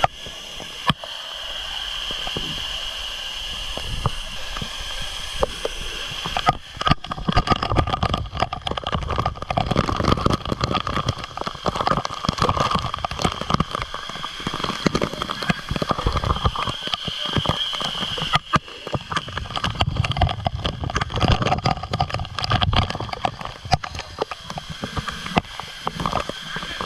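Waterfall water rushing and splashing. A steady rush for the first six seconds or so, then louder, uneven splashing to the end.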